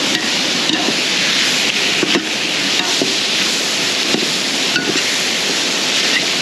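A metal ladle stirring onions and tomatoes in an aluminium pot, scraping and knocking against the pot a few times, over a steady rushing hiss.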